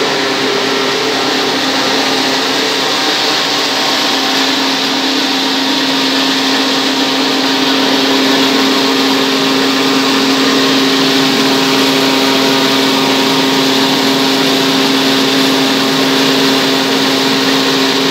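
Plastic granules-making line (Swaraj SX-GR250) running: its electric drives and belt-driven strand pelletizer make a steady machine hum under an even whirring hiss.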